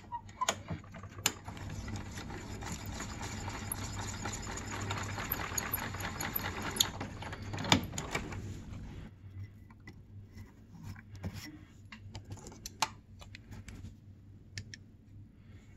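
Small electric driver spinning a case trimmer's cutter against a 6.5 Creedmoor brass case, trimming it to length: a steady motor whir with cutting noise that starts about a second in and stops about nine seconds in. Scattered clicks of brass and tools being handled follow.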